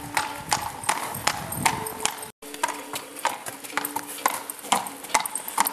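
A mare's hooves clip-clopping on a concrete yard as she is led in hand at walk and trot, several sharp, uneven hoofbeats a second. The sound drops out for an instant about two seconds in.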